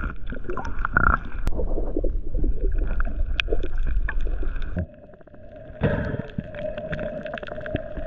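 Muffled underwater sound picked up by a camera held in the sea: a low rumble of water movement with many scattered sharp clicks. It drops out abruptly about five seconds in, then returns with a steady hum under the clicks.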